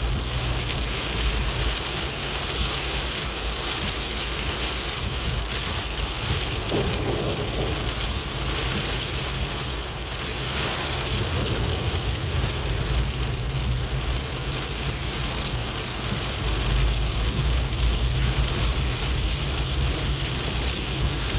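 Steady rain falling, with a low rumble underneath that grows a little louder about three-quarters of the way through.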